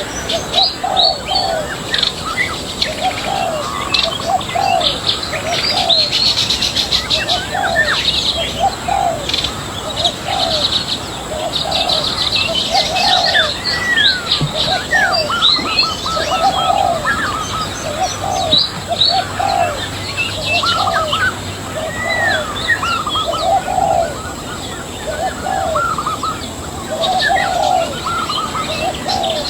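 Several birds chirping and twittering, with a lower call repeating about once a second underneath.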